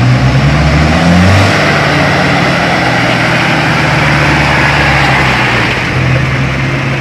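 Diesel cargo truck engines running hard under load as the trucks work through deep mud, the engine note stepping up about a second in and then holding steady.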